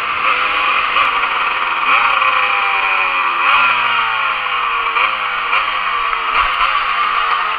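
Yamaha DTR 125's two-stroke single-cylinder engine with a Doma Racing exhaust, revved three times, about two, three and a half and five seconds in. Each time the pitch jumps up sharply and then falls away slowly.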